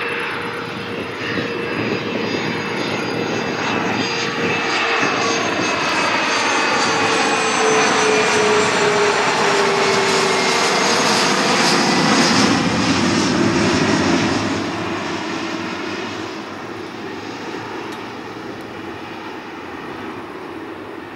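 Rolls-Royce Tay turbofans of a twin rear-engined Fokker jetliner at approach power, passing overhead on final approach with gear down. The jet noise swells to its loudest a little past halfway, its whine slowly dropping in pitch as it goes by, then fades away.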